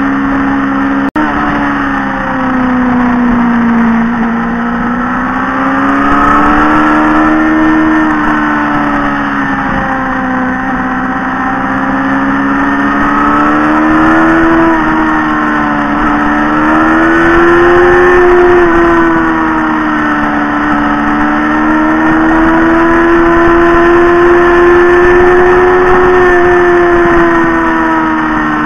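Motorcycle engine running at cruising speed, heard from the bike being ridden, its pitch rising and falling smoothly as the throttle opens and eases through a run of curves, with a steady rush of wind and road noise. A brief click about a second in.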